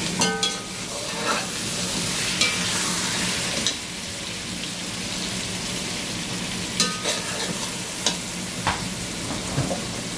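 Raw chicken pieces sizzling in a pot of hot fried onions as they are turned with a metal slotted spoon. The spoon scrapes and clinks against the pot several times, and the first clink rings briefly.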